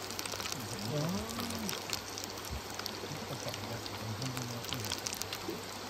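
Hot oil bubbling and crackling steadily as battered skewers (kushiage) deep-fry in an aluminium pot on a camp gas stove.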